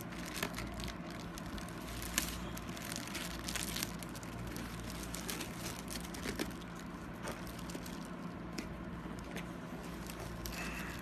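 Cardboard shipping box and shrink-wrapped product box being handled: irregular rustling, scraping and crinkling of cardboard and plastic film, over a steady low hum.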